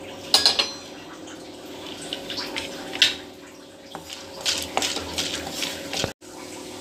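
Chana dal and urad dal frying in a little oil in a kadai with a light sizzle, while a wooden spatula scrapes and knocks against the pan as they are stirred. The sound drops out for a moment near the end.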